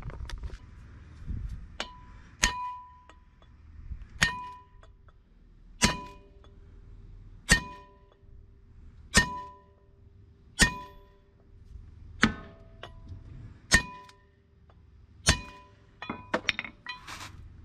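Sledgehammer striking a steel half-inch extension set on a wheel stud, pounding press-fit wheel studs into a truck's front hub and brake rotor. About ten sharp metallic blows, one every second and a half or so, each ringing briefly, then a quicker run of lighter knocks near the end.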